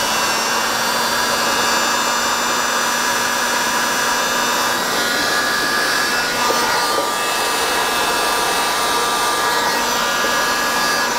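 Electric heat gun running steadily, a loud rush of blown air over a constant motor whine, while it shrinks heat-shrink tubing onto soldered wire joints.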